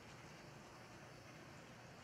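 Faint, steady running of an HO-scale brass model steam locomotive: a low hum from its open-frame motor under a steady hiss.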